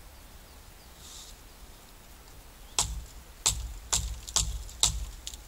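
Dry wood cracking: five sharp cracks about half a second apart, starting about three seconds in.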